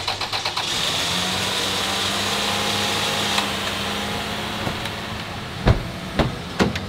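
Car engine on a jump start: a brief stretch of rapid starter cranking, then the engine catches and runs with a steady hum and hiss, dropping to a lower level about three seconds later. Near the end come two or three sharp knocks.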